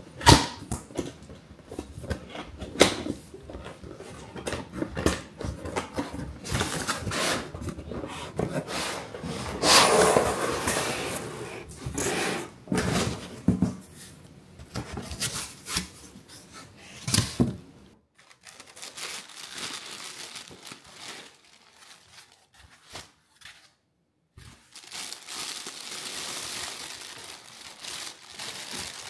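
A cardboard box being unpacked by hand: scrapes, knocks and a loud tearing stretch about ten seconds in as the box is opened, then softer plastic-bag crinkling near the end as the wrapped grinder is handled.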